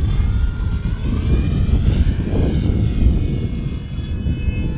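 Electric motor and propeller of an E-flite Extra 300 3D RC aerobatic plane in flight: a whine that rises and then falls in pitch near the middle, over a heavy low rumble.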